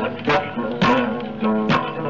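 Music played on a plucked string instrument, with several sharp plucked notes over held pitched tones.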